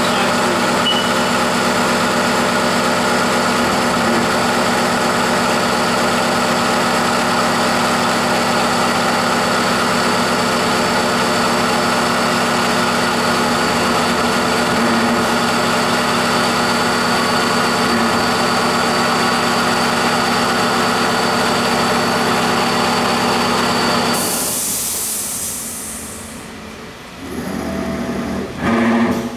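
Haas TM1 CNC vertical mill running, a steady whine of motors with many fixed tones. About three-quarters of the way through there is a short hissing rush, and the machine's sound then drops away.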